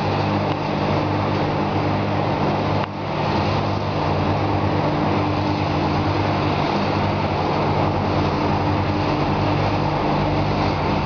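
An engine running steadily with a constant low hum, dipping briefly about three seconds in.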